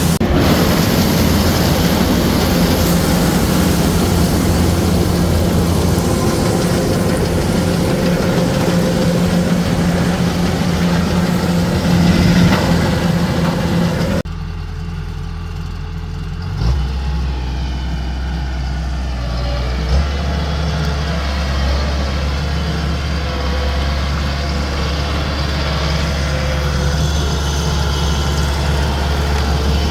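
Heavy corn-harvesting machinery running with a steady diesel-type engine drone and a noisy clatter over it. About halfway through, the sound changes abruptly to a quieter, lower engine hum.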